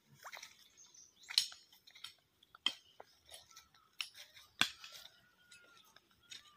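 Irregular crunching clicks of footsteps on dry, clod-strewn soil and fallen leaves, about eight sharp steps. A faint whistle that rises and then falls comes in near the end.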